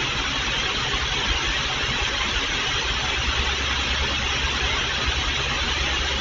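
Electric pedestal fan running: a steady rushing noise with a low hum underneath, heard through a security camera's microphone.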